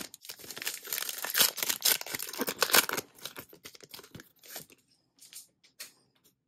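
Foil trading card pack wrapper being torn open and crinkled. The crackling is dense and loud for the first three seconds, then thins to a few softer crinkles.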